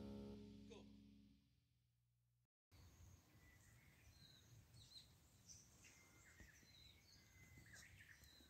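Background guitar music fading out over the first two seconds, then after a brief silence, faint outdoor ambience with short bird chirps scattered through it.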